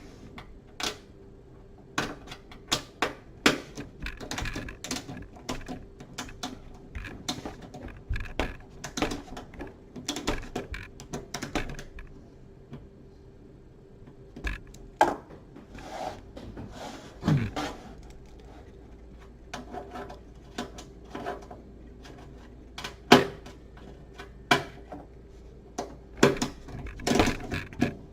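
Ratcheting screwdriver and screws working on an oven's sheet-metal rear access panel: irregular clicks, taps and light metallic knocks, some ringing briefly, as the panel screws are backed out.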